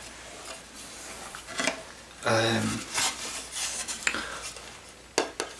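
A handmade wooden mask handled close to the microphone: scattered light taps, clicks and scrapes of fingers on carved wood, with a few quick clicks near the end.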